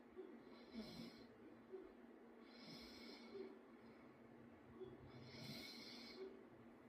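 A sleeping person snoring lightly: faint, slow breaths about every two to two and a half seconds, three of them, one with a low rumble.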